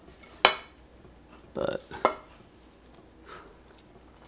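A ceramic dinner plate knocking on a kitchen counter: one sharp knock with a short ring about half a second in, and a second knock about a second and a half later.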